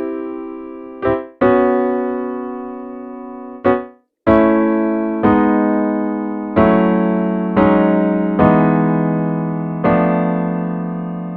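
Roland Verselab MV-1 playing a piano-type preset: sustained chords struck one after another, each left to fade before the next, about one a second after a brief break about four seconds in.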